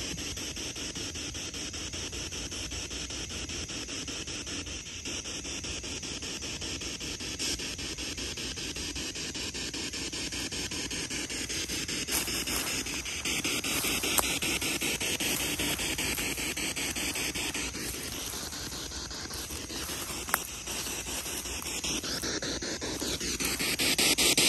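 Spirit box sweeping through radio stations: a steady rush of static, chopped into rapid, evenly spaced pulses. Two sharp clicks partway through.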